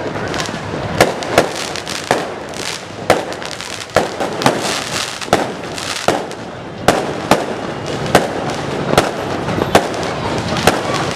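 Fireworks going off in a dense barrage: irregular sharp bangs, about two a second, over continuous crackling.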